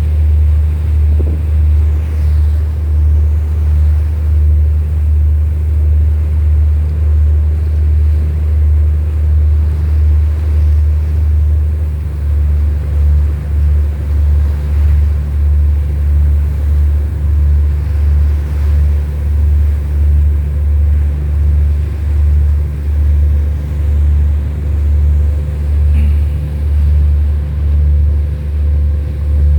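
Loud, deep ship's engine rumble that pulses about once a second, with a faint steady hum above it.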